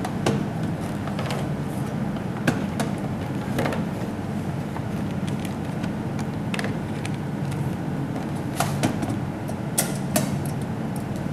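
Scattered clicks and light knocks of an electric rice cooker's power cord and plug being handled and plugged in, with a couple of sharper clicks near the end as the cooker's cook switch is pressed, over a steady low background hum.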